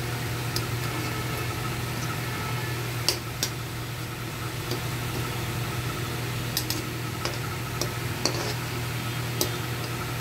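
Pastry patties deep-frying in hot oil: a steady sizzle with scattered sharp crackles and pops, over a constant low hum.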